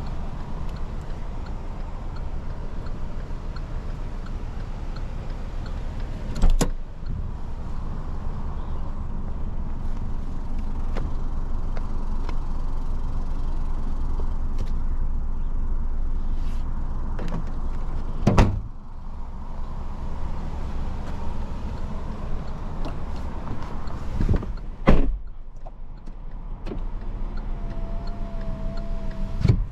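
Door and trunk-lid thumps of a 2020 Hyundai Elantra sedan over a steady low rumble. A door shuts about six seconds in and the trunk lid slams shut around eighteen seconds. The loudest thump, about twenty-five seconds in, is the driver's door closing, after which the sound is muffled and a short electronic chime tone sounds near the end.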